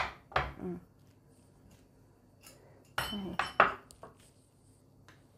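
A ceramic mug set down on a wooden rack with a knock, followed by a couple of smaller knocks. About three seconds later a glass bottle is set down beside it in a quick cluster of clinks with a brief ring.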